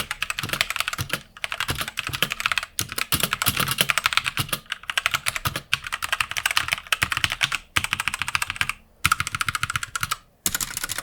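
Fast typing on an Ant eSports MK1300 Mini 60% mechanical keyboard with Otemu red linear switches, plastic top plate and double-shot ABS keycaps: rapid runs of keystrokes broken by short pauses. A slight ticking or rattle comes from the stabilized keys such as the space bar and backspace, which he puts down to poor, unlubed stabilizers.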